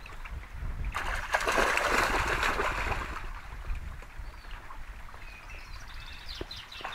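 A Labrador–Belgian Shepherd mix dog wading and splashing through a shallow stream, loudest about one to three seconds in. The shallow water trickles steadily underneath.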